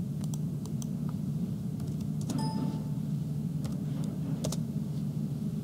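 Steady low room hum with a few scattered sharp clicks, typical of a computer mouse and keyboard being worked. About two seconds in comes a brief light ringing tone.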